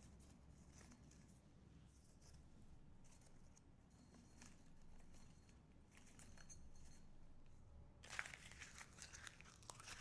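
Mostly near silence with a faint low room hum and a few soft handling clicks. From about eight seconds in comes a louder crinkling rustle as decor items are handled.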